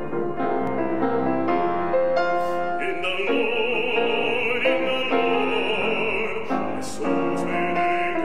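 Grand piano playing alone for about the first three seconds, then a baritone voice entering and singing in classical style with vibrato over the piano accompaniment.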